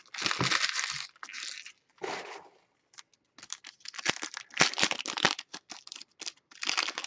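Foil trading card pack wrappers crinkling and tearing as packs are ripped open and the cards pulled out, in irregular bursts with short snaps and brief pauses between them.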